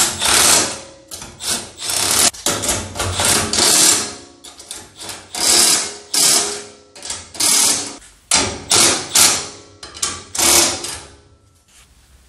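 Cordless impact driver hammering in a string of short bursts as it runs nuts down onto the bolts of a steel wheelbarrow's handle braces. The bursts stop about a second before the end.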